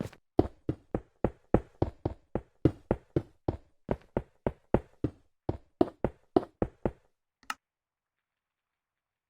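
Rapid knocking, about three to four knocks a second, stopping about seven seconds in, with one last faint knock shortly after.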